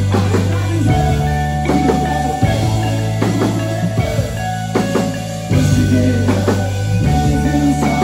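Live rock band playing: drum kit keeping a steady beat over a pulsing electric bass line and electric guitars, one a Telecaster-style guitar being strummed, heard loud through a phone's microphone in the room.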